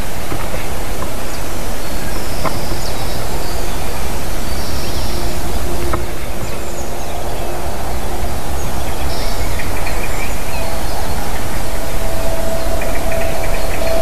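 Wind rushing over a treetop nest-camera microphone: a loud, steady rush with a heavy low rumble. A few faint high chirps come through now and then.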